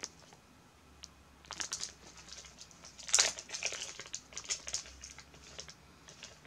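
Small clear plastic bag crinkling and rustling as it is opened and handled, in irregular bursts of crackles that are loudest about three seconds in.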